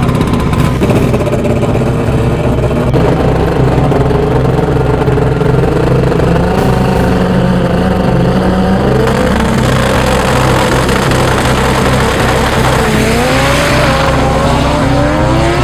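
Drag race car engines running loudly at the start line, then launching near the end, the engine pitch climbing again and again as the cars accelerate away down the strip.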